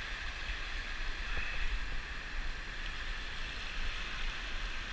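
Shallow ocean surf washing and swishing around the detectorist, a steady hiss with no distinct strokes.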